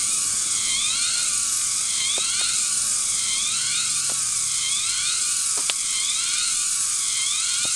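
Cicadas buzzing steadily and high, with a rising-and-falling call pattern that repeats about once a second. A few faint knife taps on a wooden chopping block come through underneath.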